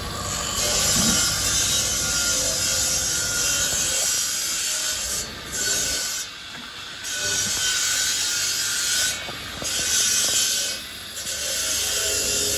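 Wet hands scrubbing and rinsing a carved onyx marble sculpture: a rough, steady rubbing hiss that breaks off briefly a few times and starts again.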